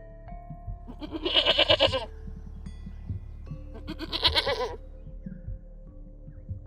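Two loud, wavering bleats from livestock, each about a second long, about two seconds apart, over background music with held notes and a soft low beat.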